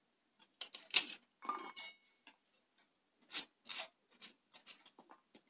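A kitchen knife slicing shallots held in the hand: a series of short, sharp cuts at an irregular pace, with the cut pieces dropping into a steel mixer jar.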